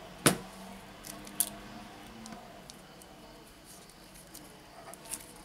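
Small clicks and taps from hands handling a smartphone's internal parts as they are pressed and fitted into the frame. A sharp click about a quarter second in is the loudest, with fainter clicks about a second and a half in and near the end.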